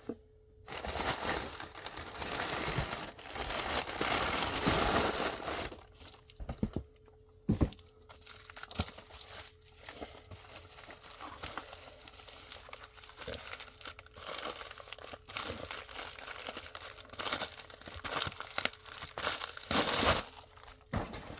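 Shipping packaging being crinkled and torn open by hand: a spell of loud rustling and tearing over the first few seconds, then softer, intermittent crinkles and clicks over a faint steady hum.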